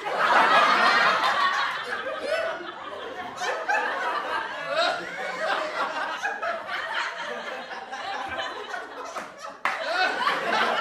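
People laughing and talking indistinctly, with a sudden jump in loudness near the end.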